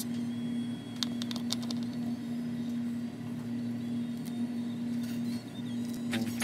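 Small clicks and scratches of hard 3D-printed plastic as support pieces are picked and snapped off a printed lure body by hand, with a short cluster of clicks about a second in, over a steady low hum. Music with a beat starts near the end.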